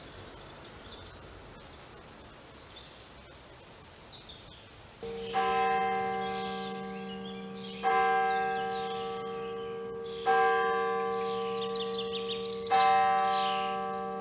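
A single large bell tolling slowly, struck four times about two and a half seconds apart, starting about five seconds in, each stroke ringing on until the next. Before it, faint bird chirps over quiet outdoor background.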